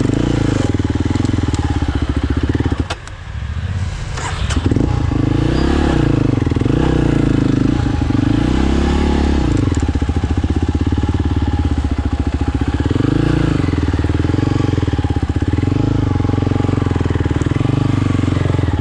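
Quad ATV engine running under varying throttle, its pitch rising and falling, with a brief drop in the engine note about three seconds in and a few knocks around then.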